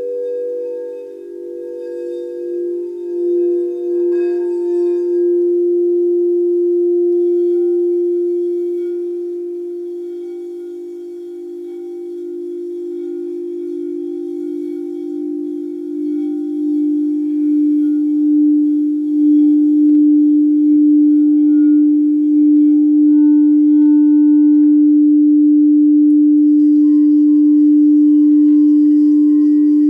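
Frosted quartz crystal singing bowls played with a mallet: several long, overlapping tones with a slow pulsing wobble. The sound swells about two-thirds of the way through, and another bowl's tone joins near the end.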